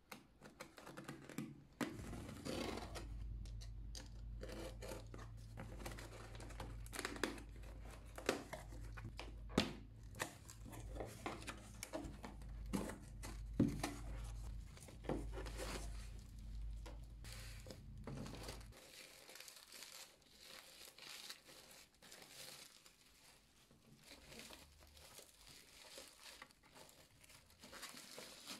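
Packing tape being slit and torn off a cardboard shipping box, with the cardboard crackling and snapping as the flaps are pulled open, then bubble wrap crinkling as the packed item is handled near the end. A low hum sits under the first two-thirds and stops.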